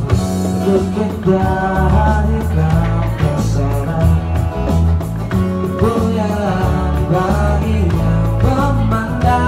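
Live band playing a rock song with a man singing, a heavy bass line stepping between notes under the voice.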